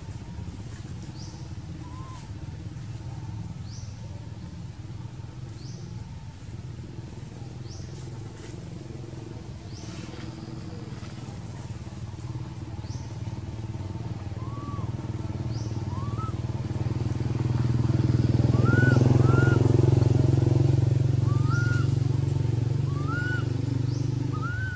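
Low hum of a passing motor vehicle's engine, swelling to its loudest a little past the middle and easing off near the end. Short high squeaks sound now and then, more often in the second half.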